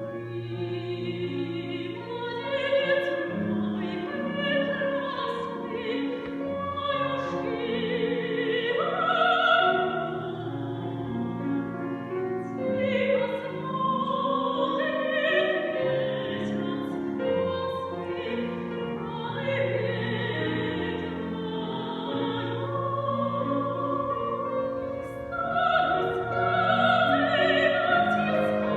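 Female soloist singing in a classical, operatic style over an accompaniment of held lower notes, with the music starting sharply at the outset.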